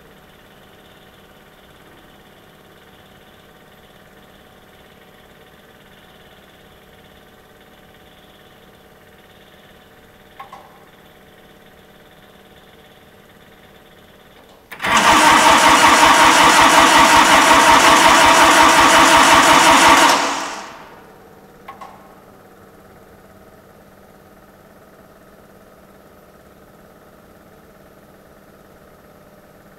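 Starter cranking a cold small Kubota diesel in a Cub Cadet garden tractor for about five seconds without it firing, then spinning down: a failed cold start at about 24 °F. A faint click comes well before the cranking and another just after it.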